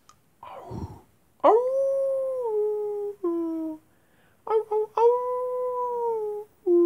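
A series of wolf-style howls: several held cries, each steady for about a second and then dropping in pitch at the end, with a few quick short yelps between them. A brief rustle comes just before the first howl.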